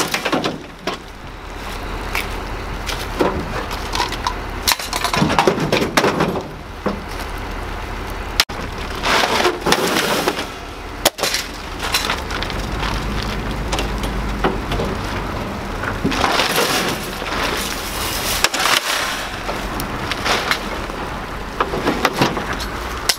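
Light scrap metal being pulled off a pickup and thrown onto a scrap pile: irregular clanks, rattles and crashes of metal frames landing, over a steady low rumble.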